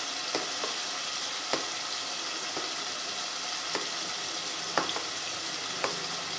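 Beef sizzling steadily as it fries in ghee with spices, with a few light spoon clicks as yogurt is mixed into the ground green chilli and coriander paste.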